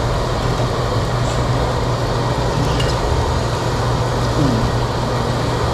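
Steady whir of an overhead exhaust ventilation fan, a low hum under an even rushing noise.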